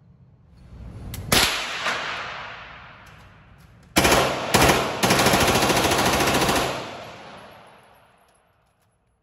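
H&K MP5K submachine gun firing 9mm on full auto, with shots echoing in an indoor range. About four seconds in come two quick shots, then a sustained burst of nearly two seconds that rings off the walls as it dies away. Earlier, about a second in, a single loud bang follows a rising swell.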